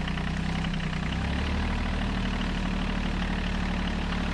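Tractor engine running steadily; its note shifts slightly a little over a second in, then holds steady.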